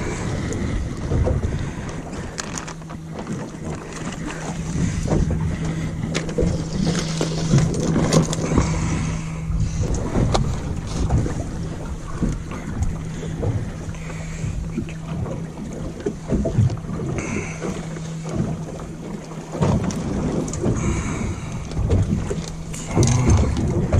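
Wind buffeting the microphone and water sloshing against a boat's hull, over a steady low hum that drops out briefly a few seconds before the end, with small knocks and rustles from hands rigging fishing line.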